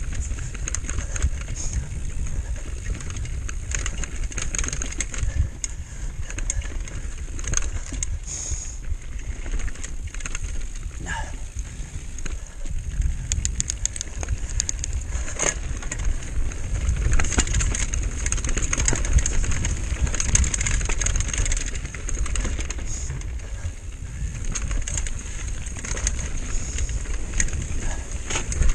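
Mountain bike riding down a rocky trail, heard from a camera on the rider or bike: a constant low rumble of tyres and wind on the microphone, with a continual clatter and rattle as the wheels hit rocks.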